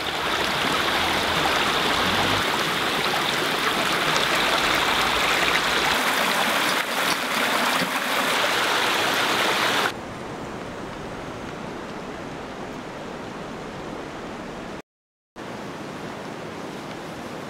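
Stream water rushing over rocks, a steady, even rush that cuts off abruptly about ten seconds in. A fainter steady outdoor hiss follows, broken by a brief drop to silence near fifteen seconds.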